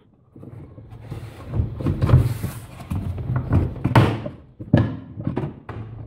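Plastic spin basket of a twin-tub washing machine knocking and scraping against its housing as it is tugged loose from the motor shaft coupling, with a few sharp knocks in the second half.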